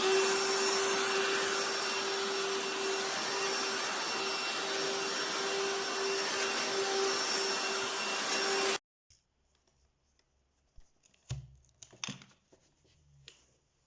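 Hoover H-FREE 100 cordless stick vacuum running at full speed: a steady motor whine over a loud rush of air. It stops abruptly about nine seconds in, leaving a few faint knocks.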